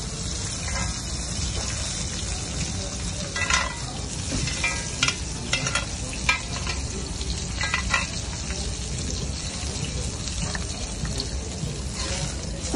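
Steak frying in butter and oil in a cast-iron pan, a steady sizzle. Between about three and eight seconds in come a few short metal clinks against the pan as it is handled and the butter is spooned over the meat.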